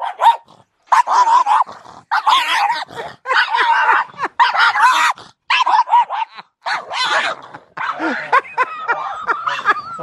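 Excited dog barking again and again, about a dozen loud yappy barks with short gaps between them.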